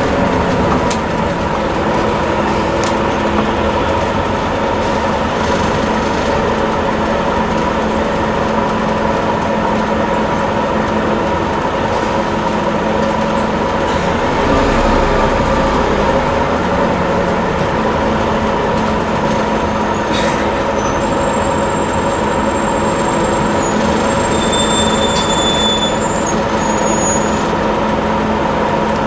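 Scania N230UD double-decker bus's five-cylinder diesel engine running steadily while the bus drives, heard from inside the passenger saloon, with a few faint clicks and rattles.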